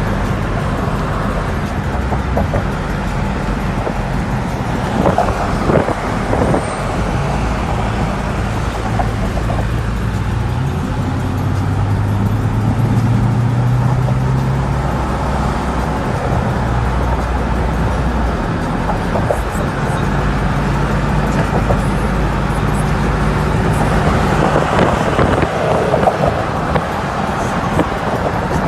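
Car engine and road noise while driving, the engine note rising for a few seconds midway as the car accelerates.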